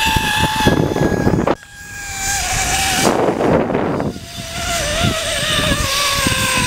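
Zip-line trolley pulleys rolling along the steel cable with a high whine whose pitch sinks slowly as the rider loses speed, over wind buffeting the microphone. A brief rush of noise comes about three seconds in.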